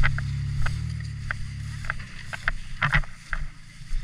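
A truck's engine running with a low, steady rumble that fades out about halfway through, with scattered sharp clicks and crunches over it.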